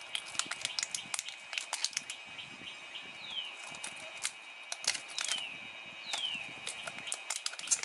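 Thin plastic shrink wrap crinkling and crackling in irregular clicks as it is peeled off a pack of AA cells. A few short falling chirps sound in the background.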